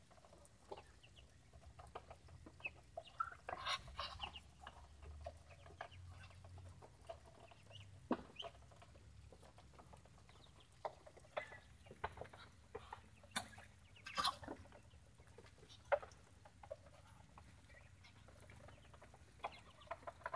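A flock of Muscovy ducks feeding, heard as faint scattered short calls and clicks, with a few louder calls about four and fourteen seconds in.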